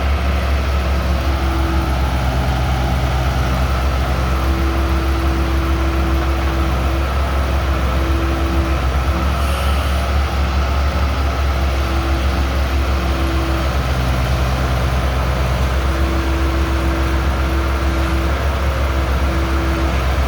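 Diesel engine of a tractor-mounted backhoe loader running steadily with a deep, constant drone. A faint higher tone comes and goes over it several times.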